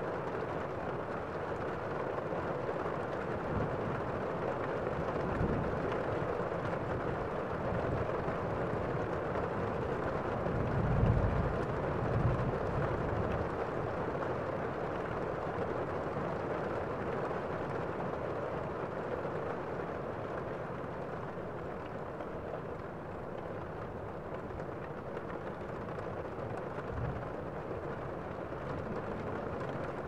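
Waterfall cascading over rocks into a pool: a steady rushing of falling water. A few brief low rumbles rise out of it, the loudest about a third of the way in.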